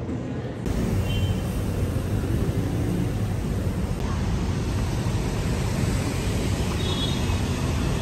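City street traffic noise: a steady rumble of cars on the road alongside a sidewalk, starting just under a second in.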